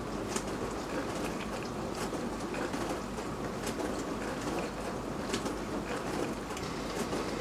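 Beko DWD5410W dishwasher running mid-cycle: a steady churning wash noise with water spraying inside the tub, and scattered light ticks at irregular moments.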